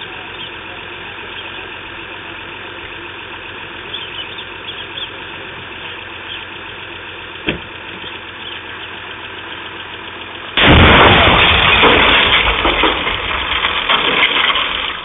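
An Audi sedan explodes about ten and a half seconds in: a sudden, very loud blast that overloads the security camera's microphone, and the noise stays loud for about four seconds before it falls away near the end. Before the blast there is only a steady hum, with a single sharp click about seven and a half seconds in.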